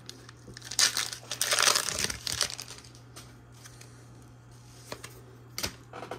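Foil-wrapped trading card booster pack crinkling and rustling as it is picked up and opened, mostly in a burst lasting about a second and a half, about a second in; a sharp click near the end.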